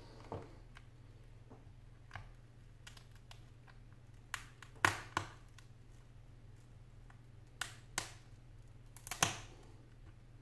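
Sharp clicks and taps of thin metal prying tools against the edge of an iPad 4 as its touchscreen is pried loose from the frame, about eight at irregular intervals, loudest around the middle and near the end, over a low steady hum.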